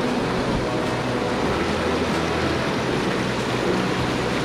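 Steady rushing of a fast-flowing river, the water running without a break.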